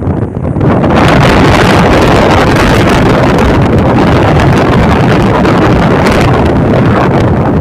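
Wind rushing over the microphone of a camera in a moving vehicle, mixed with road and engine noise: a loud, steady rush.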